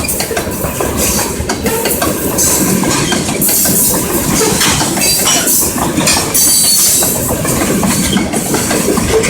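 A train rolling past at close range: steady rumble of railroad cars with a run of wheel clicks and clatter over the rails.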